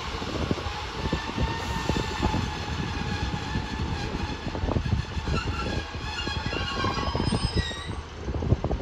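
Class 150 Sprinter diesel multiple unit pulling away along the platform: its underfloor diesel engines and wheels rumble on the rails, with many short knocks and thin high wheel squeals from about four seconds in as it draws away.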